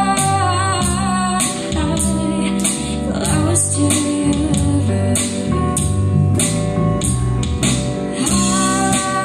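A small band performing a song: a woman singing with guitars strumming and a hand-played drum keeping a steady beat.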